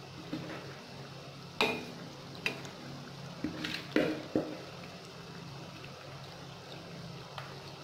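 Potato-and-onion pakoras (gram-flour batter fritters) deep-frying in hot oil in a wok, the oil sizzling and bubbling steadily. A few sharp clicks and knocks come through, the loudest about a second and a half and four seconds in.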